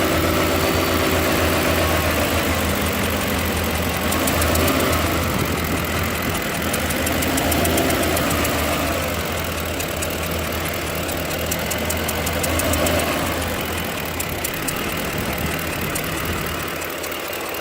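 2007 Ford Expedition's 5.4 L V8 running at idle, with a steady low drone and a mid-pitched hum that swells and fades about every four seconds, over a fast light ticking. The uploader hears this as a strange noise from the driver side that starts only once the truck is shifted into drive.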